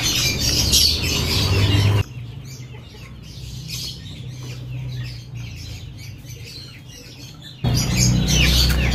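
Small birds chirping over and over, quick high calls. A louder low noise covers the first two seconds and the last second or so, cutting in and out abruptly.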